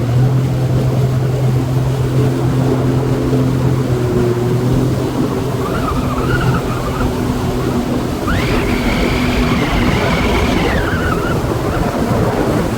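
Jet ski engine running steadily under way, with water and wind noise. A high whine rises about eight seconds in, holds for a few seconds, then drops away.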